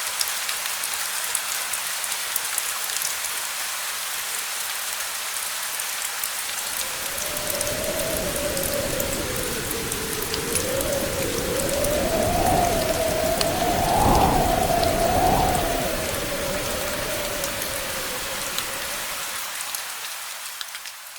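Steady rain with individual drops pattering. About a third of the way in, a low rolling rumble of distant thunder builds, is loudest a little past the middle, then dies away near the end.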